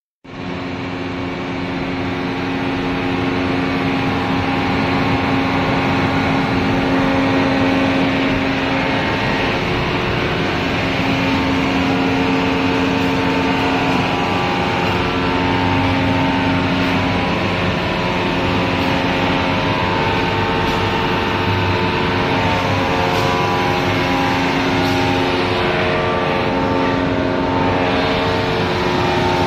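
Steel belt cooler and the plant machinery around it running: a steady mechanical drone of several held tones over an even hiss.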